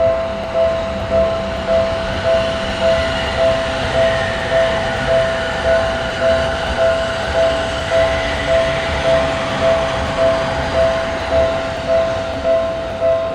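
Japanese level-crossing warning alarm sounding its repeated "kan-kan" ding, a little under two strokes a second, while a train runs past over the rails.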